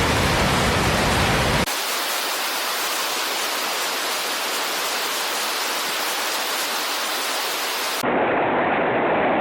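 Steady rushing noise of water, as from heavy rain or floodwater, changing character abruptly twice: it thins out about a second and a half in and turns duller near the end.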